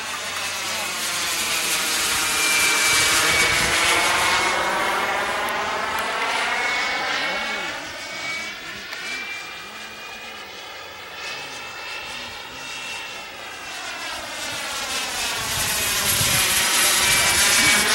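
Radio-controlled model jet flying past: a steady rushing jet sound with a faint high whine. It swells as the plane comes close about three seconds in, fades around ten seconds, and swells again near the end on its next pass.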